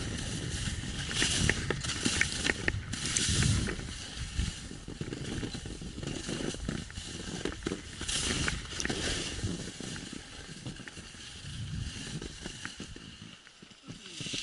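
Skis sliding and scraping over snow on a descent, the hiss swelling in surges with the turns, over a low rumble of wind on the microphone.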